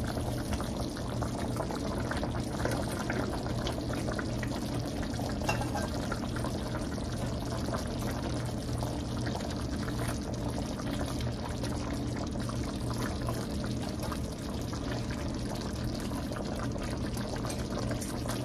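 Gravy simmering and bubbling in a stainless steel skillet, with soft wet plops as fried chicken pieces are set down into it. A steady low hum runs underneath.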